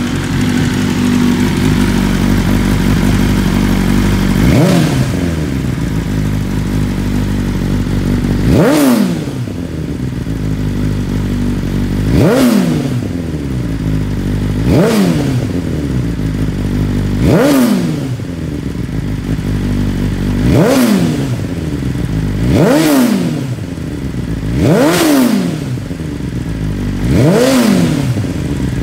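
2020 BMW S1000RR's inline-four, on a full Akrapovič exhaust system, idling high after a cold start, then blipped nine times. Each blip is a quick rise in revs that falls straight back to idle, every two to four seconds.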